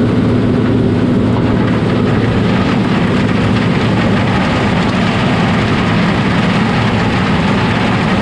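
Large farm machinery running steadily: a loud, even noise over a constant low hum.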